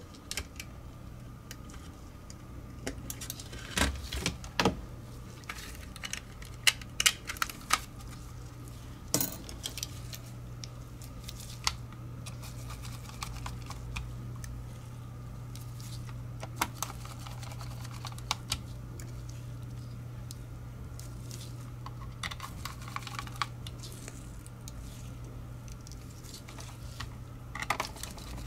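Scattered small plastic clicks and taps as a Logitech G Pro Wireless mouse's shell is fitted back together and its bottom screws are driven in with a small screwdriver, over a steady low hum.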